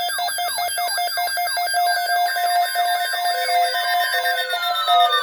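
Several weather alert radios sounding their alarms at once: a falling chirp repeats about three times a second over steady beeping tones, and a slow falling tone joins about three seconds in.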